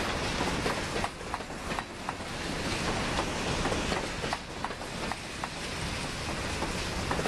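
Covered hopper cars of a freight grain train rolling past close by: a steady rumble of steel wheels on the rails, with irregular sharp clicks and clanks from the wheels and cars.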